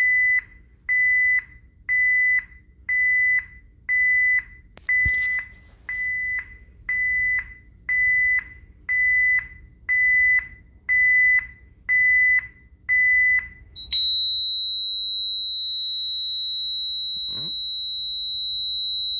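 Honeywell alarm panel sounding its entry-delay warning: short high beeps, about one a second, after the front door is opened with the system armed. About fourteen seconds in, the delay runs out and the beeping gives way to a steady, higher continuous alarm tone: the system has gone into alarm for the front door.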